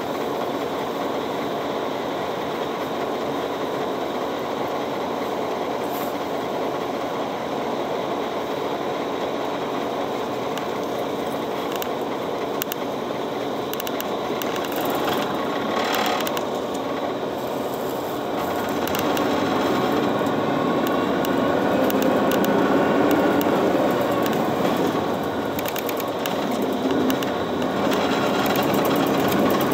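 City bus in motion, heard from inside the passenger cabin: a steady run of engine and road noise with light rattles. The engine note rises and the noise gets louder about two-thirds of the way through.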